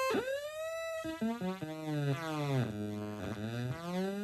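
Homemade Atari Punk Console giving out one electronic tone whose pitch is turned by hand. It starts as a mid tone, steps down in jumps to a low tone around the middle, then steps back up near the end.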